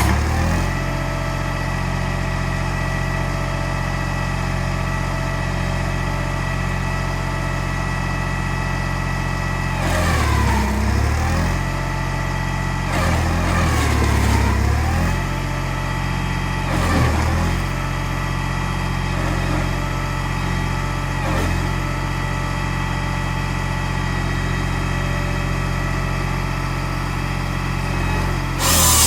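Valtra A93 tractor's diesel engine running steadily at working revs while driving a Hypro 755HB processor. Its note sags briefly in pitch a few times in the middle and recovers, as the processor puts load on it.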